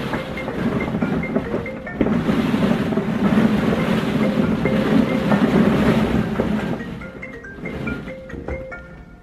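Plastic ball-pit balls rattling and shifting as someone burrows through them. The rattle swells about two seconds in and fades in the last few seconds, over background music with a light mallet-percussion tune.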